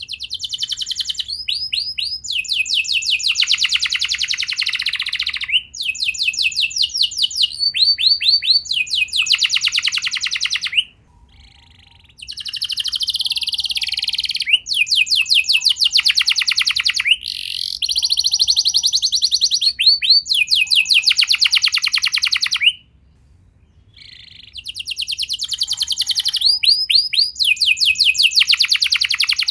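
Domestic canary singing long rolling trills, each phrase a fast run of repeated notes, broken by two short pauses.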